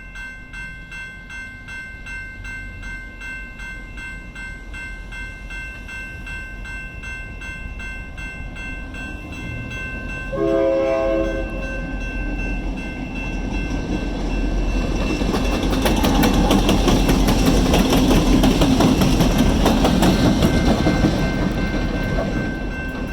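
A passing passenger train. About ten seconds in it sounds one short signal blast, then the rolling rail noise and clicking of the wheels grow louder for several seconds as it goes by.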